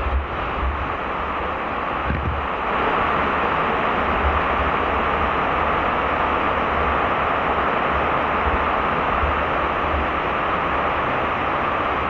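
Water pouring over a check dam's spillway right at the microphone: a loud, steady rush that swells slightly about three seconds in, with irregular low buffeting on the microphone.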